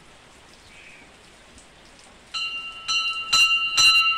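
A steady hiss, then a little over halfway in a hanging bell starts being rung by hand, struck about twice a second, each strike ringing on into the next.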